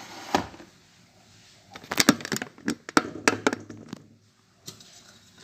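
Kitchenware being handled: a quick series of sharp knocks and clicks, such as a blender jar and utensils being knocked and set down, about two to three and a half seconds in.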